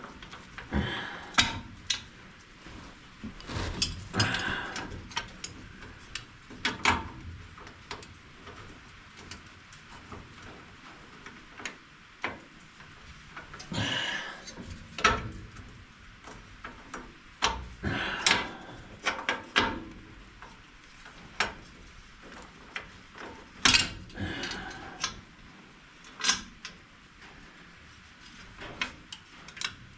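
Irregular metallic clicks, taps and short scrapes of a bolt and hand tools being worked on a round baler's frame, as a cross-threaded bolt is backed off and restarted. Sharper knocks come a few seconds apart.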